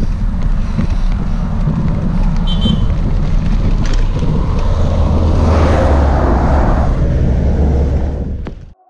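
Wind rushing over the microphone of a moving bicycle, with a steady low rumble, while highway traffic passes close by; a vehicle goes past with a swelling rush about five to seven seconds in. The sound cuts off suddenly near the end.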